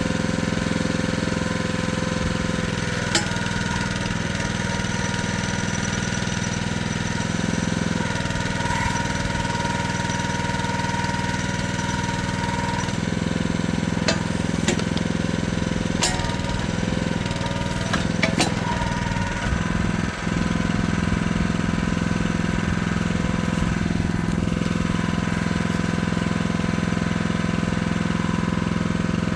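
Small engine of a Jansen mini excavator running steadily, its note shifting several times. A few sharp metallic clicks or clanks sound over it.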